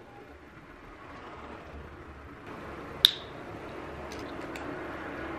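A single sharp plastic click about three seconds in, followed by a few faint ticks, from handling a DNA test kit's swab and small sample tube. Between them there is only a low, faint background.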